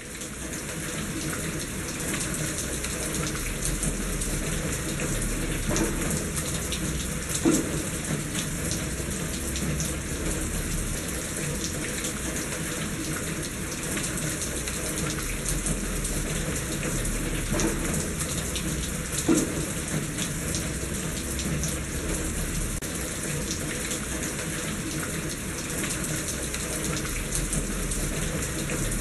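Steady rain with water running in a gutter, scattered drops ticking on a hard surface; two sharper drop impacts stand out, about seven and nineteen seconds in.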